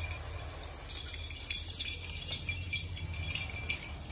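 Steady high-pitched chorus of insects shrilling in the woods, with scattered faint clicks and rustles.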